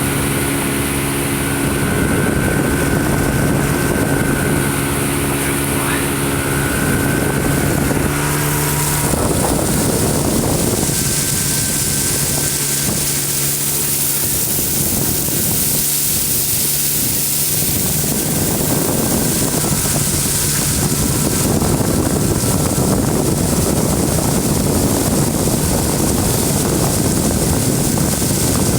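A vehicle engine running steadily, with wind. For the first nine seconds or so it carries a steady low hum with a few even tones, then gives way to a steady rushing noise.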